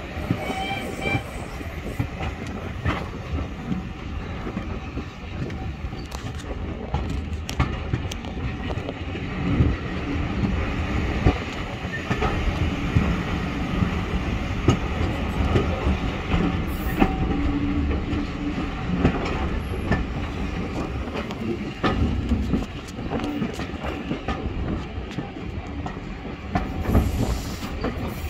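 Passenger carriage of a steam-hauled heritage train in motion: a steady running rumble with wheels clicking over rail joints and short wheel squeals.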